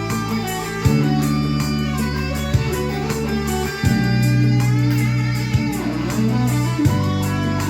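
Electric guitar music: held chords that change about every three seconds, with a melody line played over them.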